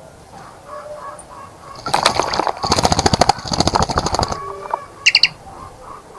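A bird bathing in a bird bath, flicking its wings through the water in a rapid run of splashing strokes for about two seconds. A pair of short, high bird calls follows a little later, with faint chirping underneath.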